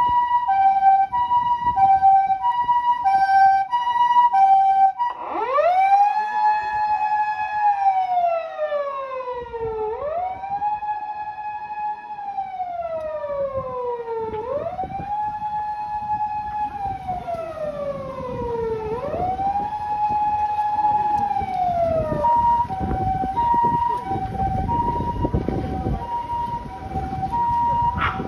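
Japanese ambulance siren: a two-tone hi-lo call alternating between a higher and a lower note, switching about five seconds in to a wail that rises, holds and slowly falls, four times over, the tone used while crossing intersections. Near the end it goes back to the hi-lo call, with a low rumble of engine and traffic beneath.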